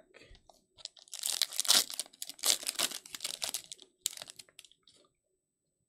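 Foil wrapper of a Panini Prizm football card pack being torn open and crinkled as the cards are pulled out. A dense crackle starts about a second in, lasts about three seconds, then tapers off.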